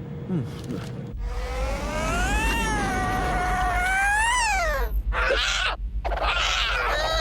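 Cartoon cat yowling: one long, drawn-out meow that rises, holds and falls in pitch, then rougher, noisier cat sounds, and another meow beginning near the end.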